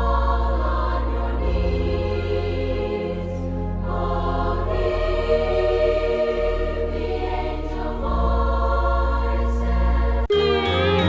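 Background music: a choir holding sustained chords over a steady low bass, with the chords changing every second or two. Near the end it cuts abruptly to a bright, chiming bell-like tune.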